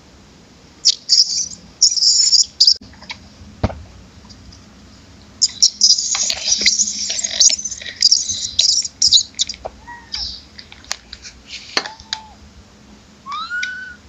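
Macaques giving shrill, high-pitched squeals in two bouts, the longer one in the middle, followed by a few short arching calls near the end.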